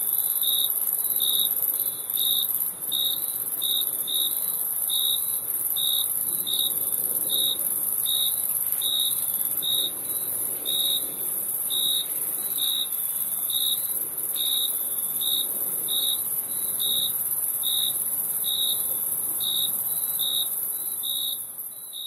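Crickets chirping: a steady, very high-pitched trill under a lower, clearer chirp that repeats about twice a second.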